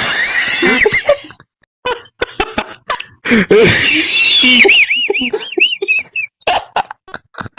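A man laughing so hard he is wheezing: breathless gasps and wheezy laughs broken by short pauses, and over the second half a run of rapid, high-pitched squealing wheezes.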